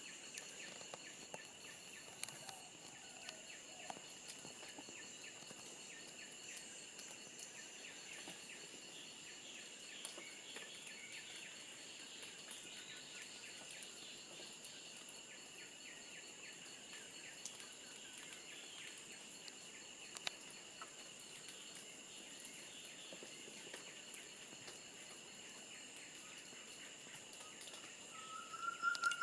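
Tropical forest insect chorus, crickets or cicadas making a faint, steady high-pitched drone of several tones at once. Near the end a louder call of repeated rising whistled notes begins.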